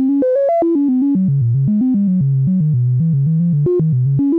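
Analog synthesizer voice stepping through random pitches, about seven short notes a second, played by the stepped random control voltage of a Make Noise Richter Wogglebug. The ego/id balance is being turned down, which narrows the range of the random pitches.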